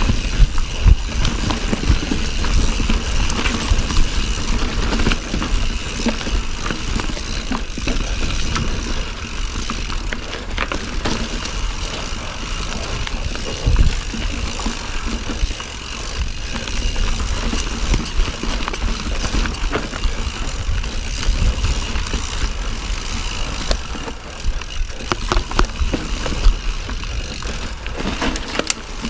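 Silverback mountain bike riding over rough trail: tyre noise with constant rattling and knocks from the bike, over a heavy rumble of wind on the microphone.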